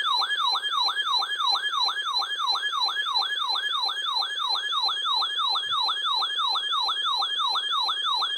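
Emergency Alert System attention signal in the form of an electronic siren-like tone, sweeping down and back up about four times a second at a steady level, announcing that a warning message is about to be read.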